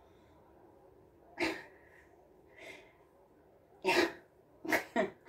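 A woman's short, forceful breaths and grunts of effort as she strains against duct tape binding her wrists. There are five sharp huffs, the loudest about a second and a half in and about four seconds in.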